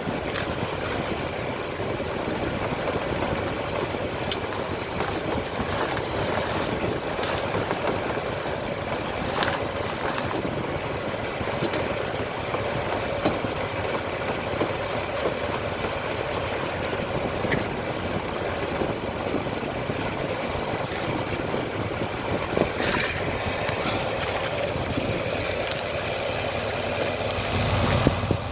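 A 2005 Pontiac G6 running at idle, with a few short sharp clunks several seconds apart from the driver-side steering rack, the sign of looseness or slop in the rack. The low rumble swells briefly near the end.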